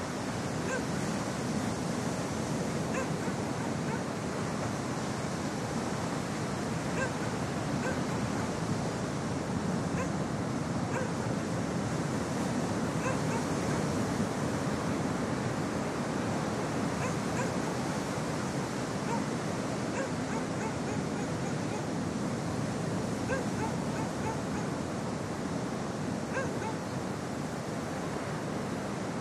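Ocean surf washing steadily onto a shore, with faint, short dog barks here and there.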